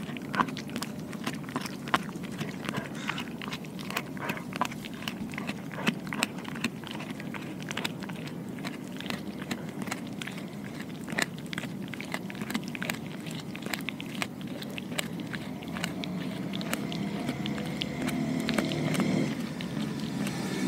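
A dog chewing and biting on a piece of raw pork skin, with many wet, sharp clicks of teeth through the flesh. Near the end a louder, low pitched sound comes in under the chewing.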